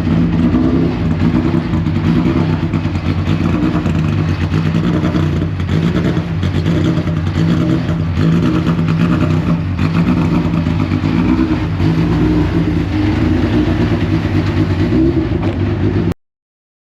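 Deep Orange 9 race car's engine running loudly and fairly steadily. It starts suddenly and cuts off abruptly near the end.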